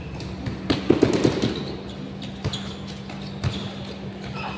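Basketball bouncing on a concrete court: a quick run of dribbles about a second in, then a few single bounces, over a steady low hum.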